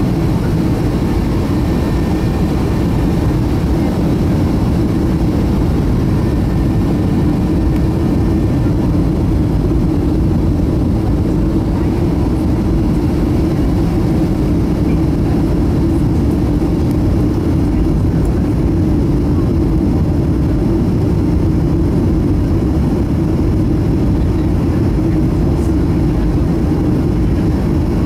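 Steady cabin noise inside a Boeing 757-200 on approach to landing: the low drone of the jet engines and the rush of air over the fuselage, even and unbroken, with a faint steady whine on top.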